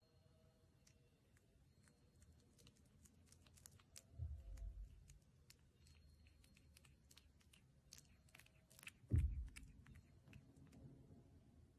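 Faint, irregular wet clicks and smacks of a kitten's mouth working against its mother's face at very close range, with two soft low thumps about four and nine seconds in.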